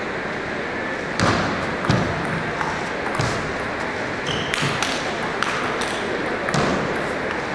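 Table tennis rally: the celluloid ball clicks sharply off the bats and bounces on the table in quick alternation, over the steady murmur of a large hall.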